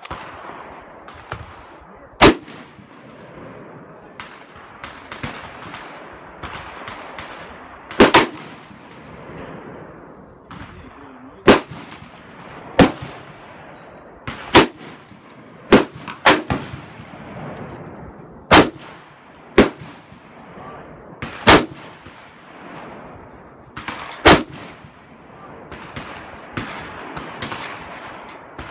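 Rifle shots from an AR-style rifle, about a dozen loud, sharp cracks fired irregularly one to three seconds apart, with fainter shots from other shooters between them.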